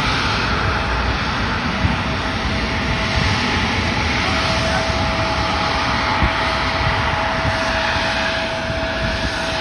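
Jet airliner engines at takeoff power: a steady, loud rush of engine noise with a thin steady whine through it that grows stronger about halfway through.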